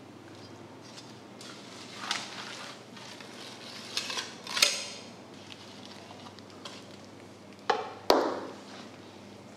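Large knife working through a giant bluefin tuna, scraping along the backbone as the loin is cut free, with several sharp clacks of the blade; the loudest two come close together near the end.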